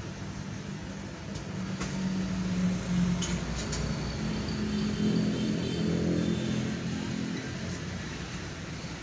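Road traffic, mostly motorcycles, passing close by, heard from inside a stationary car. A steady engine hum swells about two seconds in, peaks over the next few seconds, and eases off near the end.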